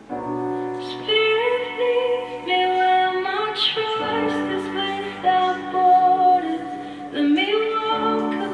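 Recorded song with a woman singing over sustained accompaniment, getting louder as the voice comes in at the start.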